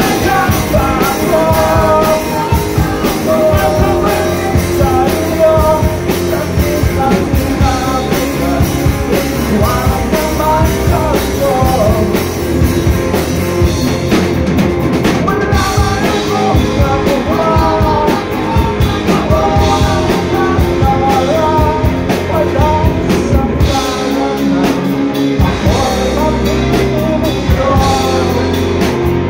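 Live rock band playing a song: a male singer over electric guitars and a drum kit, loud and steady throughout.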